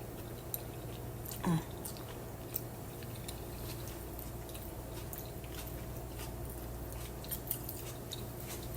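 A person chewing a mouthful of spaghetti, with faint wet mouth clicks and a short voiced 'mm' about one and a half seconds in, over a steady low electrical hum.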